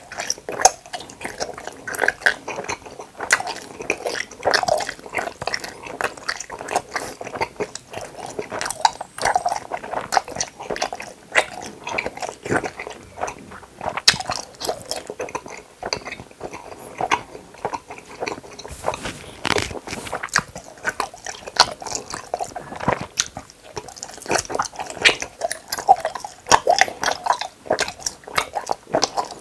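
Close-miked chewing of hamburger-shaped gummy candy: a dense, irregular run of mouth clicks and smacks.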